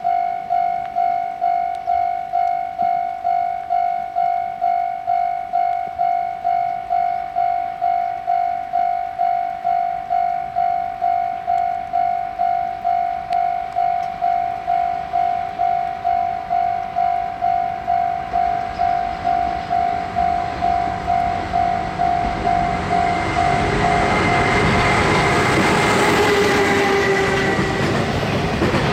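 Japanese level-crossing alarm ringing in steady pulses, a little under two a second. About two-thirds in, the rumble of a freight train hauled by a DF200 diesel-electric locomotive rises and passes loudly over the crossing, drowning out the bell.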